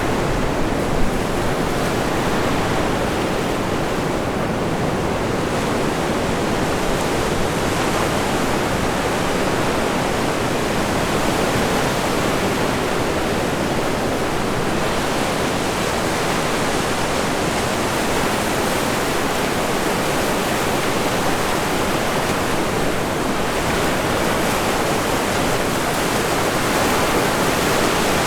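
Steady rush of Pacific Ocean surf breaking on the beach in strong wind, an even noise with no breaks. A brief bump about a second in.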